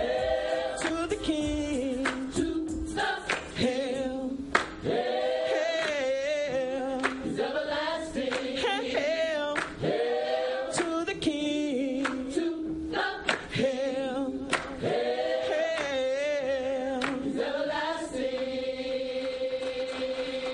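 Gospel choir of men's and women's voices singing unaccompanied in harmony, with scattered hand claps. Near the end the voices settle into one long held chord.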